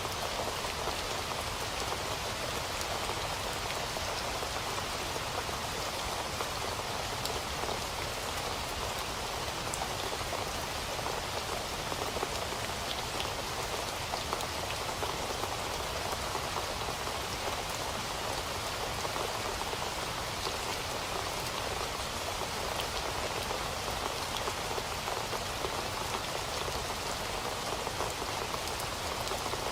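Steady rain falling, with individual drops ticking now and then.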